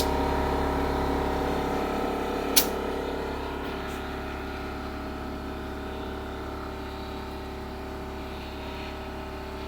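An electric motor starts up and runs with a steady, even hum, slowly easing in loudness. A single sharp click comes about two and a half seconds in.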